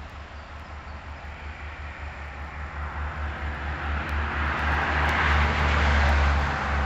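A vehicle passing, its rushing noise swelling over a few seconds and loudest near the end, over a steady low hum.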